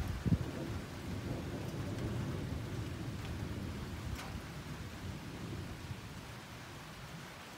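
Thunder rolling in a low rumble that slowly fades away, over the steady hiss of rain. A gust of wind buffets the microphone just after the start.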